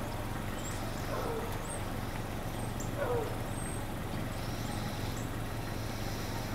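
A steady low rumble like a running vehicle or engine. Two short falling calls come through it, one about a second in and one about three seconds in, with a few faint high chirps.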